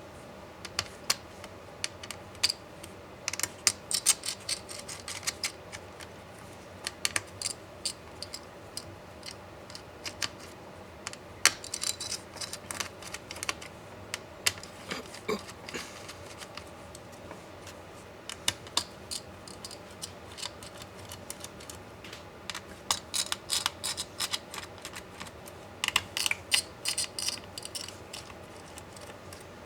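Irregular clusters of small, sharp clicks and taps from a laptop being taken apart by hand: plastic and metal parts, screws and tools being handled. The clicks come thickest about three to five seconds in, around twelve seconds in and again near the end.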